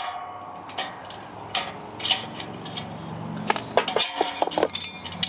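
Metal parts of a ceiling fan clinking and knocking as it is taken apart by hand, with a short metallic ring near four seconds in.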